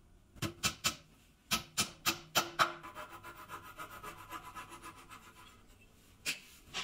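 A hammer tapping a glued wooden dowel into its hole in a wooden frame: three quick taps, a short pause, then five more, each with a short ring. A flush-cut saw then trims the dowel flush with rapid, light rasping strokes for about three seconds, followed by two sharp knocks near the end.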